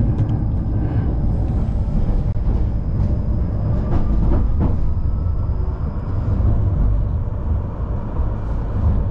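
A tram running along its rails, heard from inside at the rear: a steady low rumble of wheels on track, with a few sharp knocks about four seconds in and a faint high whine.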